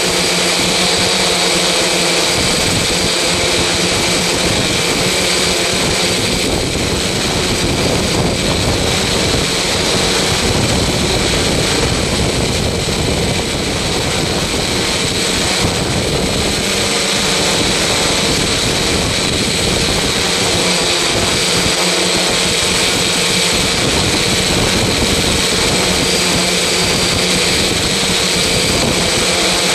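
A machine running steadily and loudly, a constant drone with several high tones held throughout.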